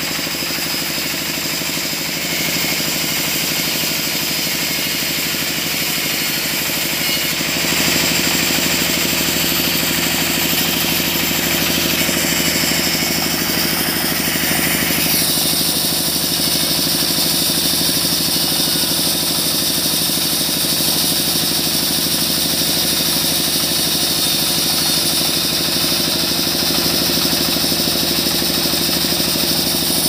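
Sawmill saw bench running steadily while a mahogany branch log is fed lengthwise through the blade. The sound grows louder about eight seconds in, and its high hiss changes about halfway through.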